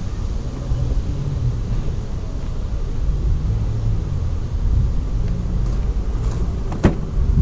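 A steady low outdoor rumble with no clear pitch, with one sharp click about a second before the end.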